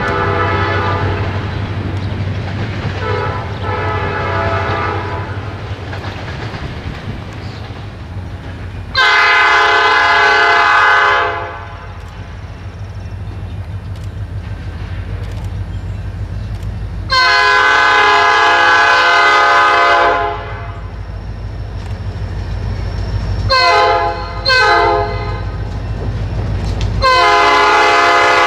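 Diesel freight locomotive's air horn blowing a grade-crossing sequence as it approaches: a long blast, another long blast, two short toots, then a final long blast held on. A steady low rumble of diesel engines and rolling freight cars runs underneath, and fainter, distant horn blasts come in the first few seconds.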